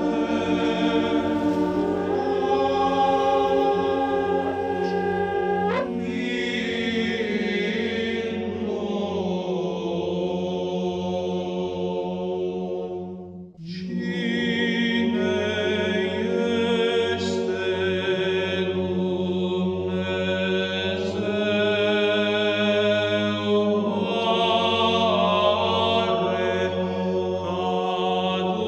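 Choir singing Orthodox church chant, the melody moving in held notes over a steady low drone. About halfway through the singing breaks off for a moment, then starts again.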